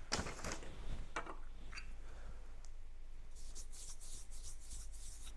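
Hands handling camera gear: rubbing and a few light clicks, then about two seconds of quick, crisp rustling near the end.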